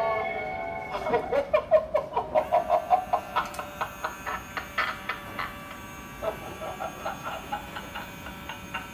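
Spirit Halloween Demonic Dahlia animatronic running, working: a fast buzzing, pulsing chatter of about five pulses a second starts about a second in, then grows fainter and slower.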